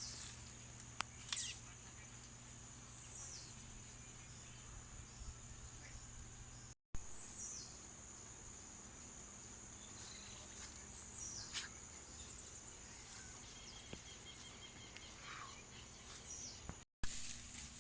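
Outdoor nature soundscape: a steady high-pitched insect drone, cricket-like, with birds giving short whistled calls that slide downward every few seconds. The sound drops out briefly twice, about seven seconds in and near the end.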